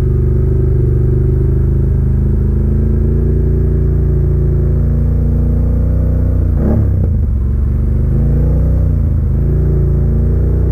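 Can-Am ATV engine running under throttle, with the engine note dipping and rising again about two-thirds of the way in.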